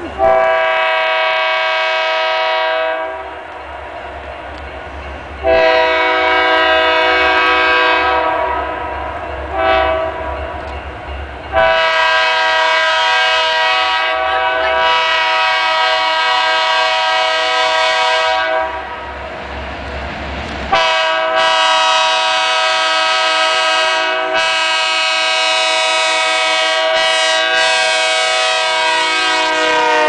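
Union Pacific GP40-2 diesel locomotive's air horn sounding the grade-crossing signal: two long blasts, a short one, then long blasts held as the train nears. Its pitch drops near the end as the locomotive passes.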